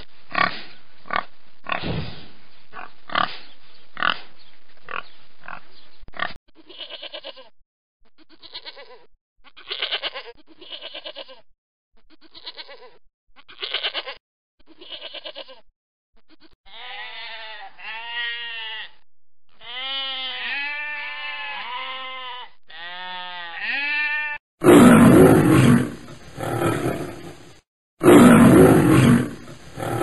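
Domestic pigs grunting, a quick run of short grunts, followed by a stretch of fainter short calls. From about the middle a goat bleats over and over. Near the end a lion roars loudly twice, the loudest sound here.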